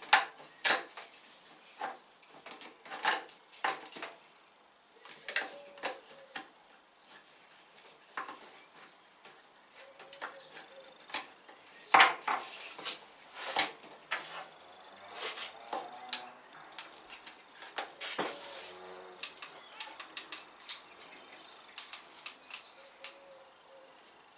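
Irregular clicks, taps and knocks from a small plastic battery insect zapper being handled and snapped back together, some of them sharp and loud.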